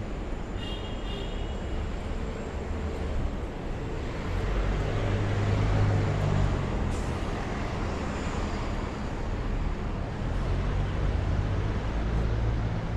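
City avenue traffic: a steady rumble of passing cars and other motor vehicles, growing louder for a few seconds around the middle as a vehicle goes by.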